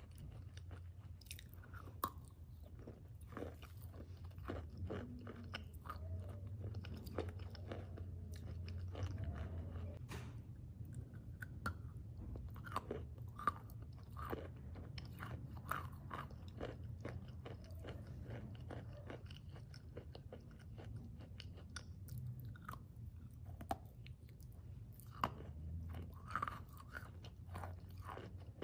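Close-miked crunchy food being bitten and chewed, with many sharp, irregular crunches.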